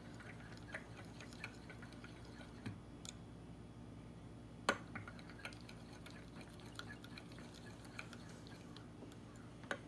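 Metal spoon stirring thick melted soft-plastic bait remelt in a glass measuring cup: faint scattered scrapes and clicks against the glass, with a sharper clink a little under five seconds in.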